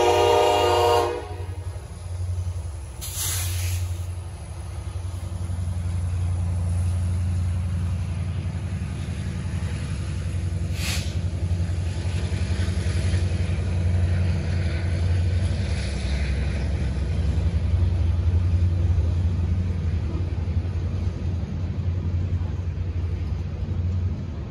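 A Norfolk Southern diesel locomotive's horn chord cuts off about a second in. Then the loaded coal hopper cars roll past with a steady low rumble of wheels on rail, broken by two brief hisses.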